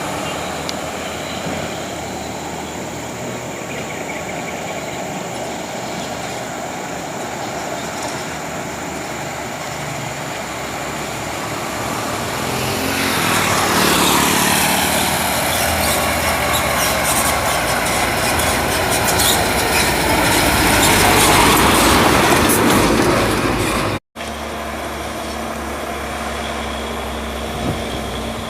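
Loaded logging truck's diesel engine working through a bend, swelling louder in the middle with its pitch sliding down and then back up. Near the end the sound cuts abruptly to a steadier engine note.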